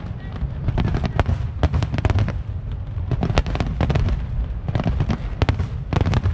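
A fireworks display: aerial shells bursting in quick succession, a dense run of sharp cracks and bangs over a continuous deep rumble.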